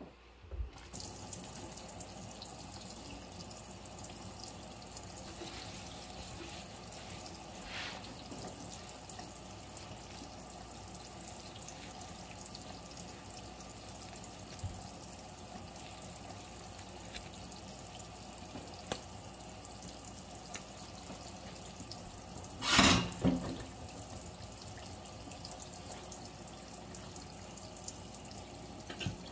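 Tap water running steadily into a stainless steel sink and splashing across the basin. About three-quarters of the way through there is one brief, louder bump.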